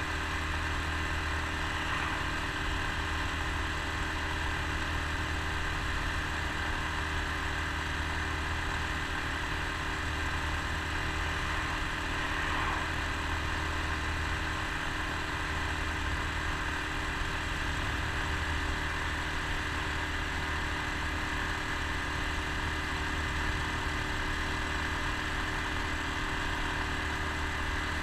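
Honda Super Cub C125's single-cylinder four-stroke engine running steadily while the bike cruises at an even speed, with steady wind and road noise.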